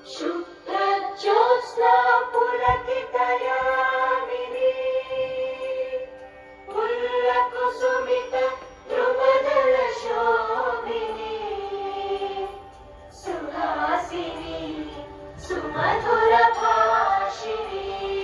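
Music with choir-like singing in long held notes, phrased in sections with short breaks between them.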